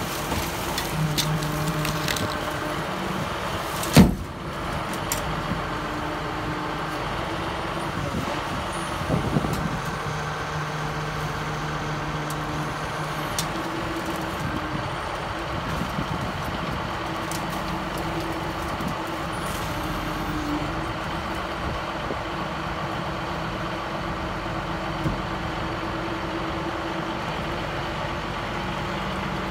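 Cummins diesel engine of a Dresser 520C wheel loader running steadily as the bucket works over a dumpster, its note shifting up and down. A single loud bang about four seconds in.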